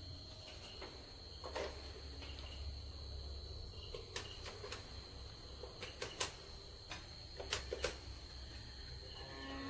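Faint ambience: a steady high-pitched tone over a low hum, with scattered soft clicks.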